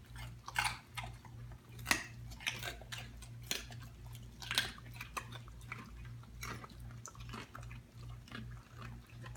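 A dog chewing a raw carrot: irregular crisp crunches and bites, the loudest about two seconds in and again about four and a half seconds in.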